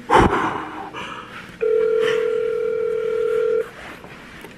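A phone's ringback tone on speaker: one steady ring lasting about two seconds, starting about a second and a half in, the sign that the outgoing call is ringing at the other end. A sharp bump as the phone is handled comes right at the start.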